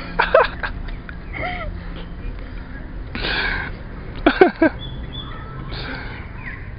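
Short bursts of people's voices: brief exclamations near the start and again a little past four seconds in, with no clear words, over a steady low hum.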